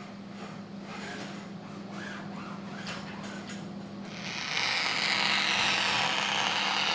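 Large tailor's shears sliding through stiff sailcloth in one long continuous cut, a steady hiss starting about four seconds in. Before it, faint handling sounds over a low steady hum.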